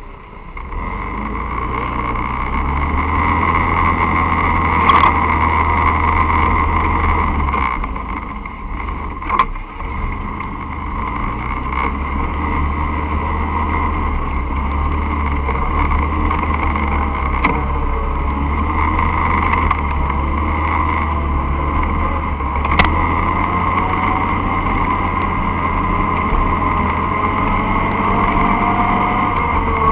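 An enduro dirt bike's engine running steadily while being ridden along a dirt trail, heard from on the bike itself. It swells up in the first couple of seconds as the bike pulls away, and a few sharp knocks cut through along the way.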